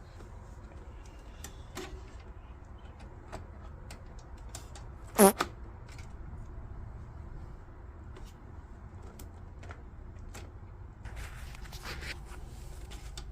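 Small plastic and metal clicks and taps from handling computer parts inside an open PC case, scattered and irregular, with one louder, sharper click about five seconds in, over a steady low hum.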